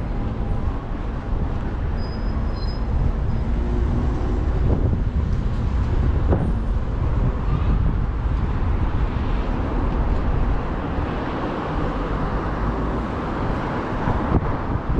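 Road traffic on a city street: cars and buses passing close by, a continuous low rumble of engines and tyres.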